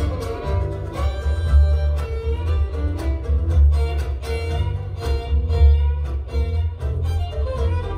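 Acoustic string band playing an instrumental tune: fiddle carrying the melody over mandolins and a double bass with a strong low bass line.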